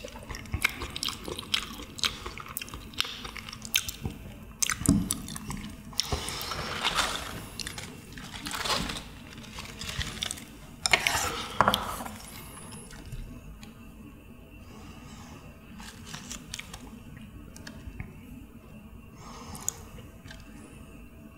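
Close-miked eating and table sounds: soju poured into a small glass near the start, chewing, and crisp rustling of fresh lettuce leaves being handled, with many short clicks. Busiest in the first half, sparser and quieter in the second half.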